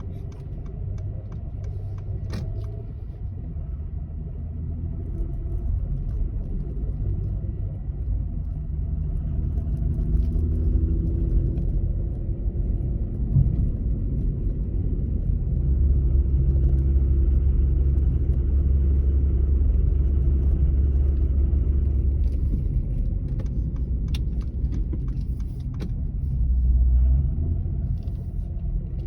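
A car running with a steady low rumble, and a few short, sharp clunks: once early, once about halfway, and several close together near the end. The clunking is the fault noise being recorded.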